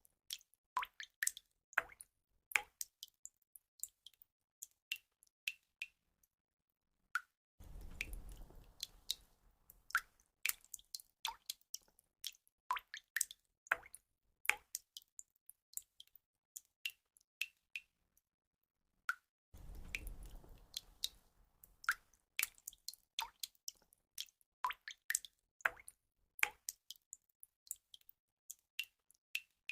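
Water drops falling one by one: irregular drips and plops, each with a short ping, a few every second. Twice, about eight and twenty seconds in, a low rushing noise comes in for about two seconds.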